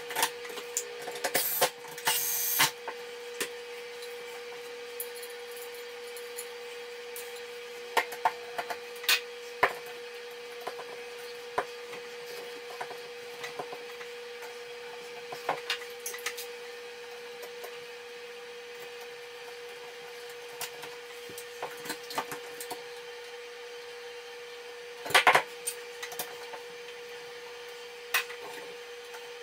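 Scattered clicks, taps and rustles of hands working a light fixture's wiring and metal mounting bracket, with a louder run of handling noise near the start and again about 25 seconds in. A steady hum runs underneath.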